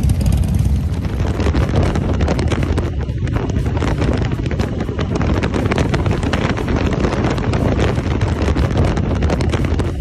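Motorcycle running while under way, with heavy wind noise on the microphone over the engine.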